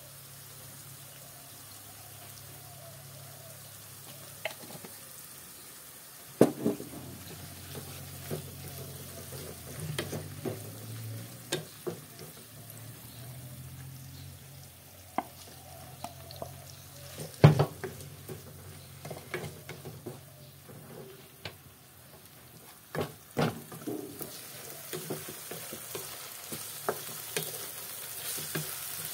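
Diced pork and onions sizzling in a pan while a spatula stirs them, with scattered sharp knocks and scrapes of the spatula against the pan. The loudest knock comes a little past halfway.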